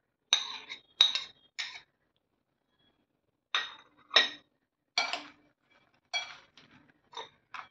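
A steel spoon clinking against a plate and a glass bowl as chopped cucumber is scraped in and the makhana mixed: a series of short sharp clinks, with a pause of about a second and a half in the middle.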